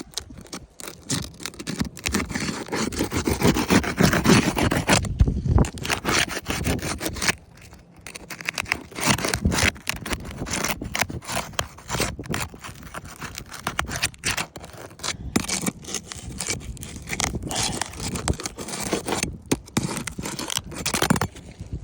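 Irregular scraping, crackling and clicking of a roof shingle being worked loose and pulled off the roof, with brief pauses.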